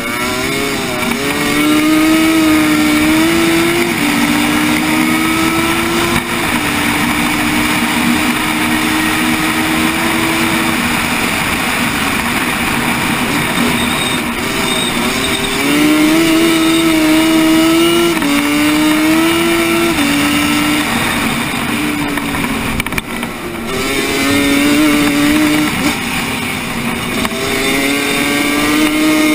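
Racing quad's engine heard from on board, pulling hard, its pitch climbing and then dropping sharply several times as the throttle and gears are worked through the corners, over a steady rush of wind and dirt noise.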